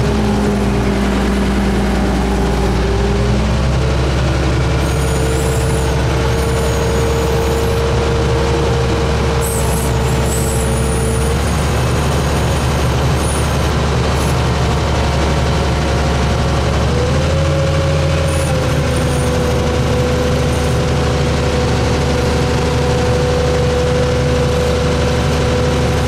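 Wheel loader's diesel engine and drivetrain running steadily while driving, heard from inside the cab. A whine rides over the engine and shifts pitch about four seconds in and again near the 17-second mark.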